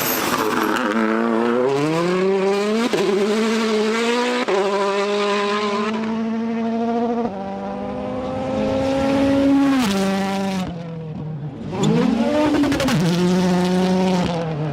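A motor-racing car engine running hard, its pitch gliding up and down and holding steady for a few seconds at a time.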